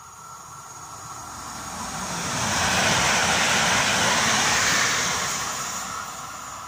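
Koleje Dolnośląskie electric multiple unit passing along the station platform: its running noise swells, is loudest from about halfway through for two or three seconds, then fades as it moves away.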